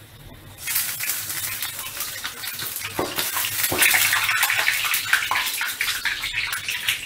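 Hot oil sizzling and crackling loudly around potato chops deep-frying in a wok, growing loud less than a second in, with metal clinks and scrapes of the slotted spoon and wire strainer against the pan.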